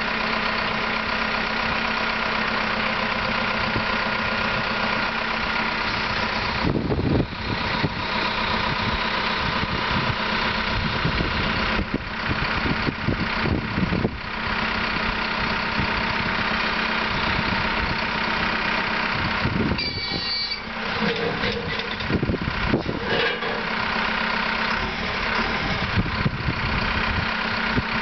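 Cat 414E loader's diesel engine running steadily, with scattered clunks and a brief high squeal about twenty seconds in.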